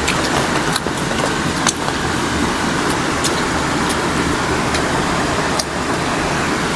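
Steady rush of flowing water from a jungle river, with a few brief sharp clicks over it.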